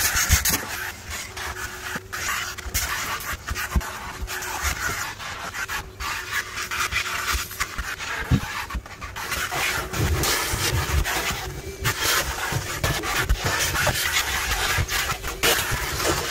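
Wet vac running, its hose nozzle sucking dirt and debris out of car floor carpet, with a steady motor hum under the rushing air. The rush rises and falls as the nozzle is pushed, lifted and rubbed over the carpet, with a few low knocks as it bumps the floor.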